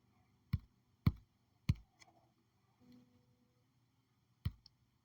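Sharp single clicks at uneven intervals: three about half a second apart in the first two seconds, then two close together near the end.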